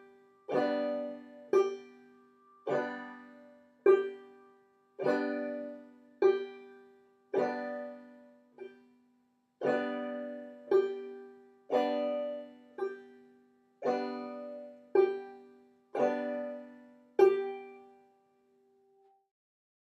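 Banjo played clawhammer style at a slow, even pace. A brush stroke down across the strings alternates with a thumb pluck of the short fifth string, about eight times, each note ringing out. The playing stops a couple of seconds before the end.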